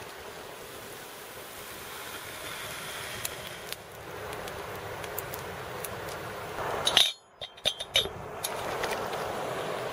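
A small twig fire catching and burning, with a few scattered crackles over a steady rushing background. About seven seconds in the sound breaks off suddenly, and a few sharp metallic clinks from a small metal pot follow, over the rushing of a shallow stream.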